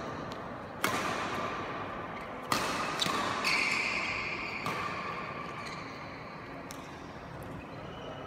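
Badminton rackets striking the shuttlecock during a rally: several sharp cracks a second or two apart, each echoing in the large hall. A short squeak sounds about three and a half seconds in.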